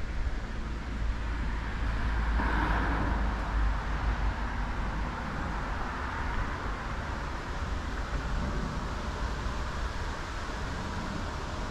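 Outdoor background noise: a steady hiss of distant road traffic that swells about two and a half seconds in, over a low rumble of wind on the microphone.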